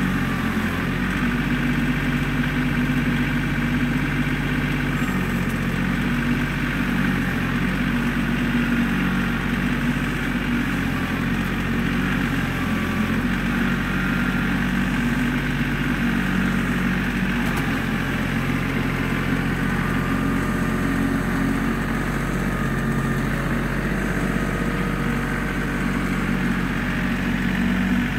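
Compact tractor's diesel engine running at a steady speed as the tractor slowly drags a box blade through dirt and gravel.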